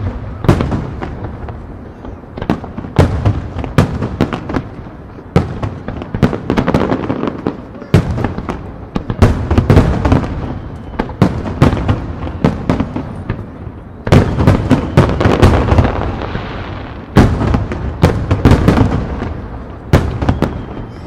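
Aerial firework shells bursting in a rapid-fire barrage (a starmine): many sharp bangs coming in quick clusters every few seconds, with a continuous booming rumble between them.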